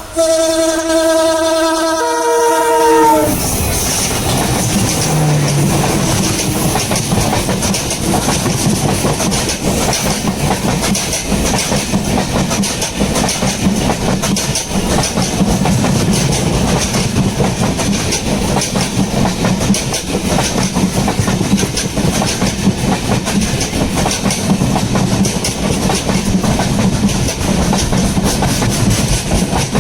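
WDP4D diesel locomotive's horn giving a goat-like screaming honk that shifts into a two-tone chord about two seconds in and cuts off about a second later. The express train then runs past: a steady rumble with the clickety-clack of coach wheels over rail joints.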